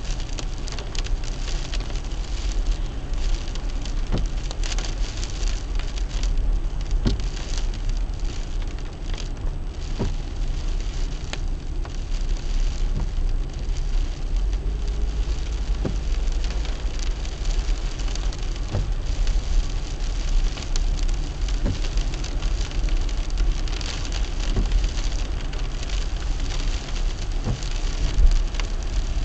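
Rain falling on a moving car, over steady low road and engine rumble. A brief stroke recurs about every three seconds.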